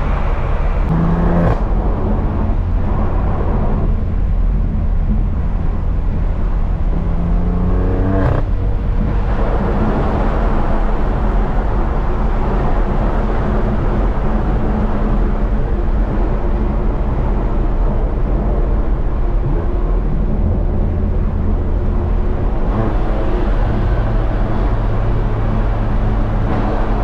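2018 BMW M3 CS's twin-turbo inline-six through an AWE SwitchPath exhaust, driving: the engine note climbs under acceleration to a gear change about eight seconds in, then runs steadily.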